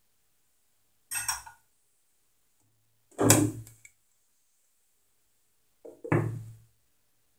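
Three clanks of kitchenware, each ringing briefly: one about a second in, a louder one about three seconds in, and near the end a glass lid set down onto the cooking pot with a light touch just before it seats.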